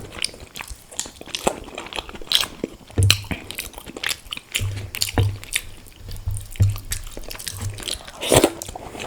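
Close-miked eating sounds: a person chewing mouthfuls of egg curry and rice, with irregular wet mouth clicks and smacks and soft low thumps of the jaw every half second or so.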